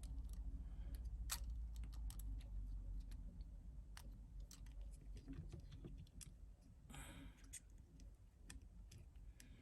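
Scattered light clicks and taps from handling an iPhone and small parts on a repair bench, over a low steady hum, with a brief soft rustle about seven seconds in.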